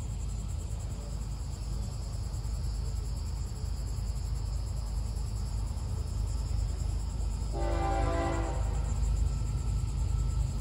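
Locomotive air horn sounding one chord-like blast of about a second, heard at a distance from an approaching freight train, over a steady low rumble.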